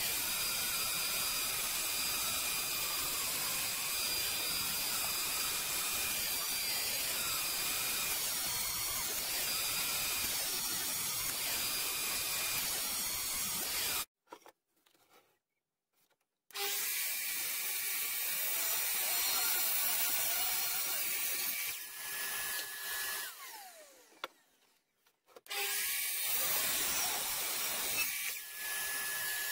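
Benchtop planer-thicknesser running steadily as it planes paint off a reclaimed wooden post. After a cut, an Evolution mitre saw runs twice, its motor whining down in pitch after each cut.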